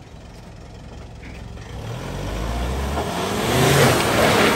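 Off-road SUV engine revving as it pulls through mud. It grows steadily louder over the second half, with a rushing noise building near the end.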